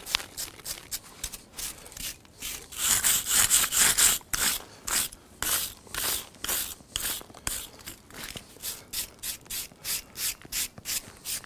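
Wire brush scrubbing back and forth over the stone top of a wall, scouring off excess lime mortar that has partly set, in quick repeated strokes at about three a second.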